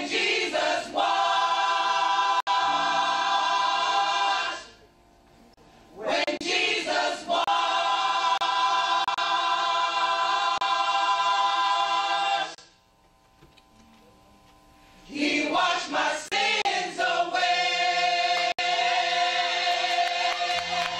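Gospel choir singing in three long phrases of held chords, broken by short pauses of silence.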